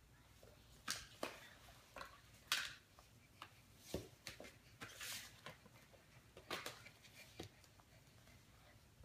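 Floor puzzle pieces being handled on a hardwood floor: scattered light clicks, taps and short scrapes as pieces are picked up, slid and pressed into place.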